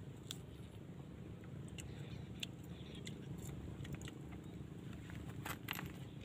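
Faint crisp clicks and crackles of small rattan palm fruits being peeled and bitten by hand, scattered through, with a louder cluster near the end, over a steady low background rumble.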